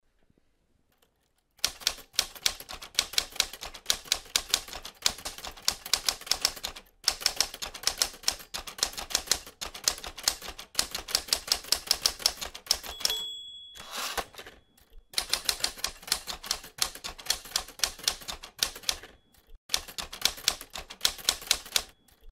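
Manual typewriter keys clacking in quick runs of several strikes a second, with short pauses between runs. The margin bell dings once about thirteen seconds in, followed by a brief carriage-return sweep.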